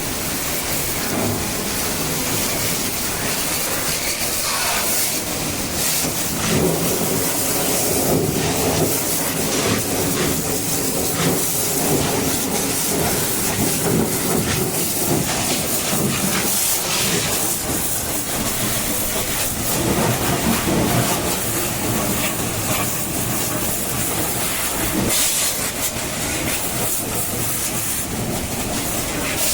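High-pressure water jet hissing and spraying against a backhoe loader, with a steady machine hum underneath for much of the time.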